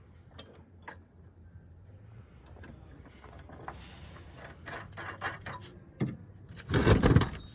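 A bolt being fitted through a patio bracket by hand, with light scattered clicks and handling noises, then a short loud burst from a cordless impact driver tightening it, about seven seconds in.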